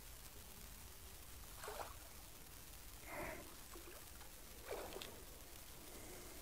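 Three short splashes, about a second and a half apart, from a hooked carp thrashing at the water's surface as it is played on a pole.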